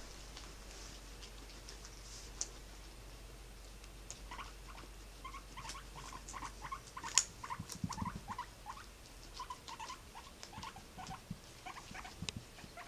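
Guinea pig and Dutch rabbit chewing and moving about in loose hay: a quick run of small crisp crunches and clicks, thickening about four seconds in, with a couple of soft thumps.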